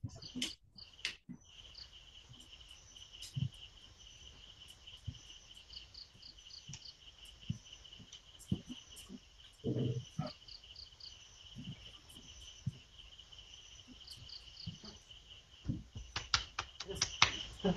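Crickets chirping in a steady pulsing trill, with scattered soft knocks. Near the end comes a quick run of sharp clicks and knocks.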